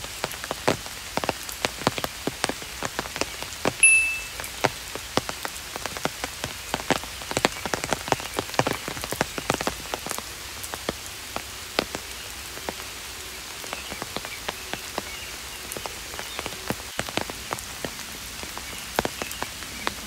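Steady rain falling, with many separate drops ticking close by. A brief high chirp sounds once, about four seconds in.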